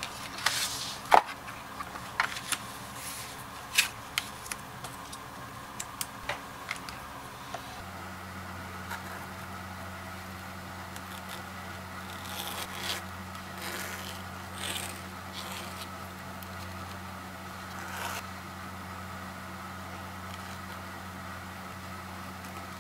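A hand tool scraping in short strokes as it is drawn along the edge of a paper pattern on leather. Sharp taps and clicks fill the first several seconds, and a low steady hum sets in about a third of the way through.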